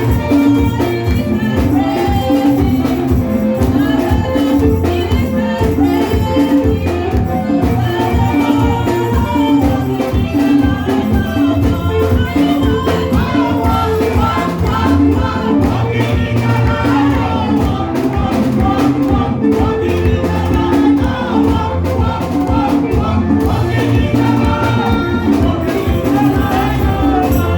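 Upbeat praise music with a steady beat and a strong bass line, playing continuously.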